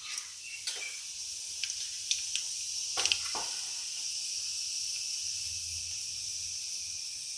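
Cumin and mustard seeds sizzling in hot oil for a tadka (tempering): a steady high hiss that starts about a second in, with scattered pops and crackles, the loudest about three seconds in.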